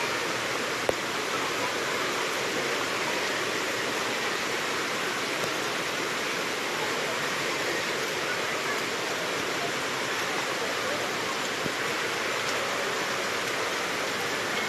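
Steady rush of a waterfall's falling water, unbroken and even throughout, with one short sharp click about a second in.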